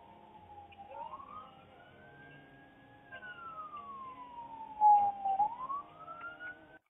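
Police car siren on a slow wail, its pitch sliding down and up in long sweeps of two to three seconds each. It is loudest about five seconds in and cuts off abruptly just before the end.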